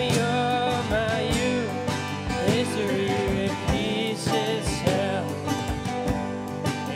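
Live country band playing, with acoustic guitar, banjo and a drum kit keeping a steady beat under a melody line that bends and glides.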